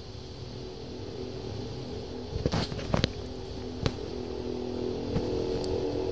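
A low, steady droning hum of several tones that grows gradually louder, the kind of unexplained hum reported as an 'apocalyptic sound' from the night sky. A few sharp clicks come between about two and a half and four seconds in.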